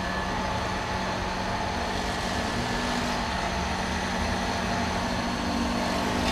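A truck engine idling steadily, a constant low hum over an even noise.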